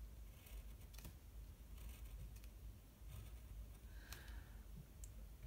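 Faint scratchy strokes of a liner pen drawing on watercolour paper, with a few light clicks.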